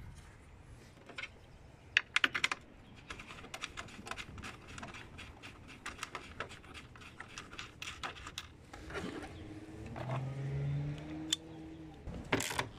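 Ratchet with a 10 mm socket clicking in quick runs as the headlight mounting bolts are turned in, with a burst of sharper clacks about two seconds in. A brief low drone comes about ten seconds in.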